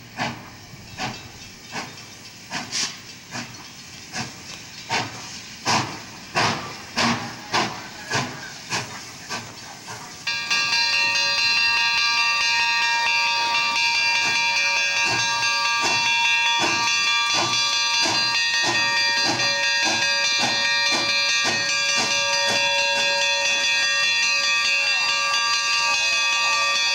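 Steam locomotive pulling away, its exhaust chuffing in sharp beats that quicken from about one and a half to two a second. About ten seconds in, a loud, steady chord of high tones starts suddenly and holds, with the chuffs going on faintly beneath it.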